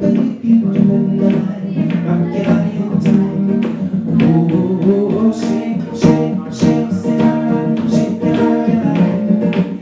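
A man singing while strumming an acoustic guitar in a steady rhythm, performed live.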